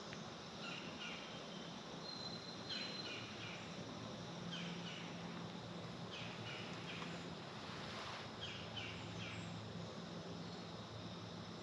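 Quiet woodland ambience: a bird calls in short runs of two or three quick chirps every second or two, once with a brief thin whistle, over a faint low steady hum.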